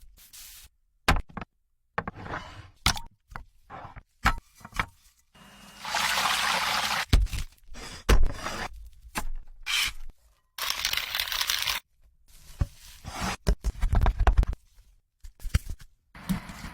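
Kitchen cooking sounds in quick cuts: sharp knocks and scrapes, and two bursts of steady hissing, rushing noise about a second long, around six and eleven seconds in.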